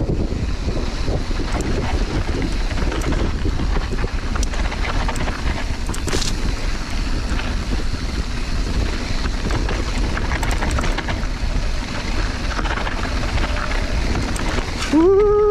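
Wind buffeting a mountain biker's camera microphone over tyres rolling down a dry dirt singletrack, with scattered clicks and rattles from the bike. Near the end, a short rising pitched sound.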